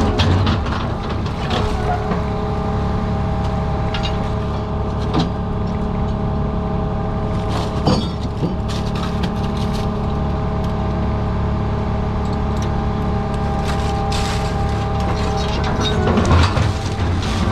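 Scallop-dredging boat's engine and machinery running with a steady hum and low rumble, with a few short knocks.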